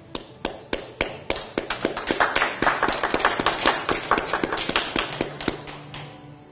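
A small crowd clapping: a few separate claps at first, quickly filling in to a brief round of applause that thins out and stops near the end.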